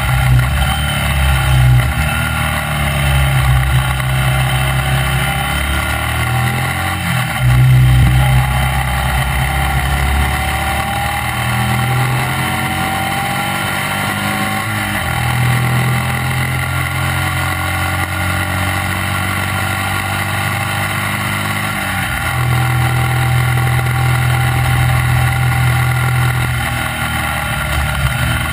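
Racing sidecar outfit's motorcycle engine running hard at speed, heard from on board with wind rush; its note jumps abruptly several times as the rider changes gear.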